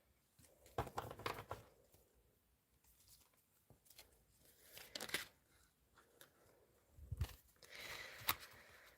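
Tarot cards being handled: faint rustling and card clicks in three short flurries, about a second in, around five seconds in, and again near the end.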